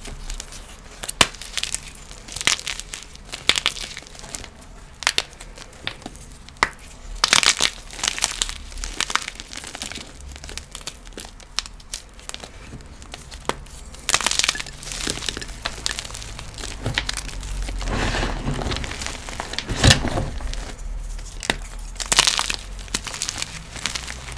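Blocks of gym chalk being crushed, crunching in many sharp cracks, with denser, more continuous crackling and crumbling in the second half.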